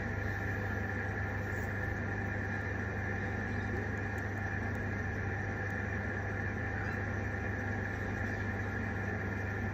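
Steady mechanical hum holding several constant pitches, with a couple of faint ticks about four seconds in.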